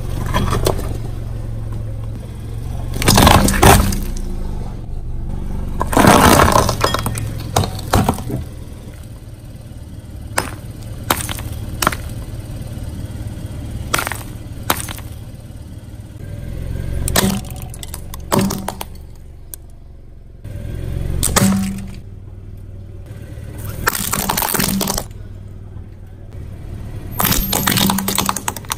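A car tyre rolling over brittle objects, crushing them: loud crunching and cracking, heaviest about three and six seconds in, then scattered single sharp cracks and shorter crunches. The car's engine hums low underneath.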